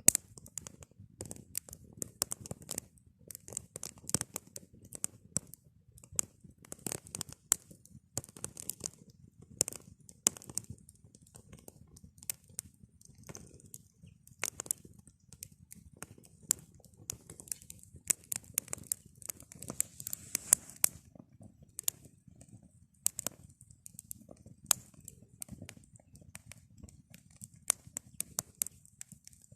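Wood campfire crackling, with irregular sharp pops and snaps of varying loudness over a soft low rushing of the flames.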